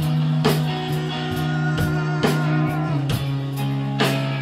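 Live rock band playing an instrumental passage: electric guitar holding sustained notes, one with a wavering vibrato, over drum and cymbal hits.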